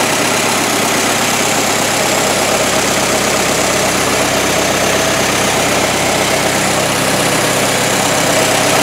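1923 Ford Model T four-cylinder flathead engine running steadily at idle, with its newly fitted exhaust manifold.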